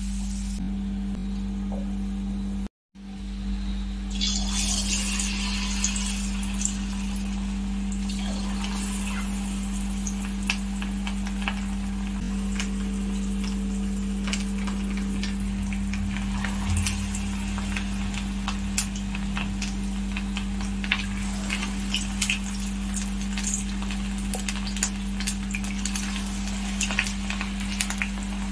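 Hot oil sizzling and crackling in a kadai as vegetable fingers deep-fry, with frequent sharp pops, over a steady low hum. The sound cuts out for a moment about three seconds in.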